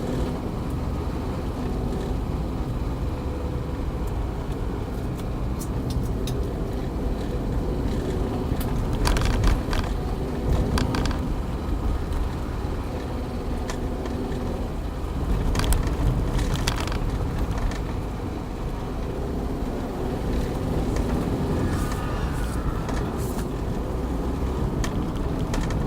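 Toyota Avanza with a manual gearbox on the move, a steady engine and road rumble with a few held tones in it. Brief clatters come twice, about nine and sixteen seconds in.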